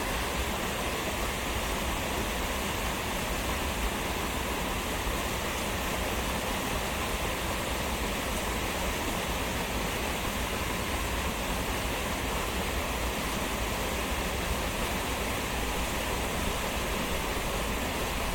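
Steady rush of a river's flowing current, an even noise with no breaks or changes.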